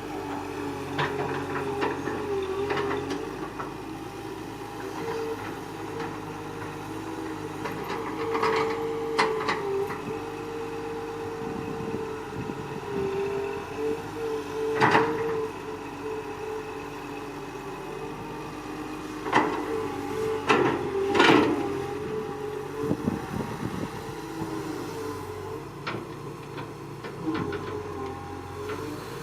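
Excavator's diesel engine running steadily, with a series of sharp knocks and clanks from the machine at work, the loudest a cluster about twenty seconds in.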